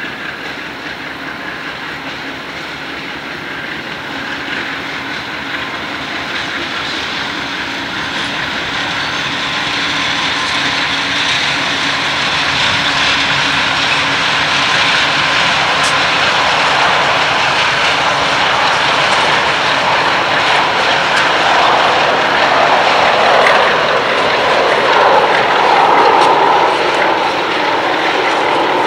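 CSX diesel-electric locomotives running past close by, their engines a steady drone with a hiss of turbocharger and blower noise that grows louder as the units come alongside.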